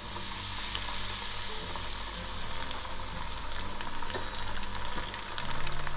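Breaded cheese balls deep-frying in hot oil in a small stainless-steel saucepan: a dense, steady sizzle of bubbling oil with a few sharp pops.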